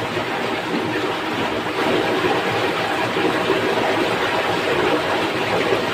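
Fast, shallow stream rushing over rocks and a small cascade of white water: a steady, even rush.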